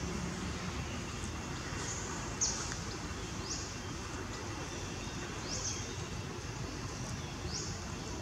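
Forest ambience: a steady background hiss with a short, high, falling call repeated every second or two, and a single click about two and a half seconds in.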